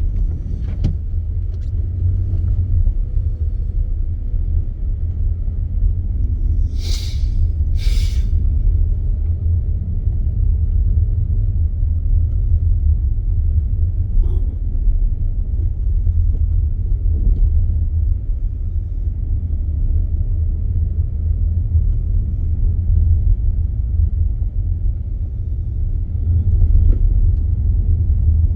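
Steady low rumble of a car driving, heard from inside the vehicle. It is interrupted by two short hissing swishes about a second apart.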